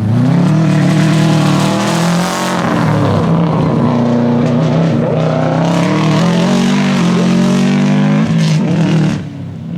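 Subaru Impreza 555 Group A rally car's turbocharged flat-four boxer engine driven hard, with the uneven boxer rumble. The revs dip and climb again a few times.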